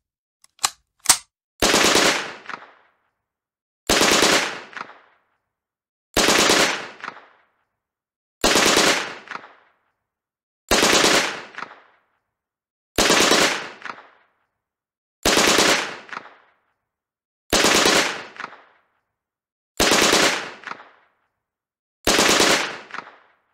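MP 40 submachine gun (9 mm) firing on full automatic in ten short bursts of a few rapid shots each, about two seconds apart, each burst trailing off in a brief echo. Two or three sharp clicks come just before the first burst.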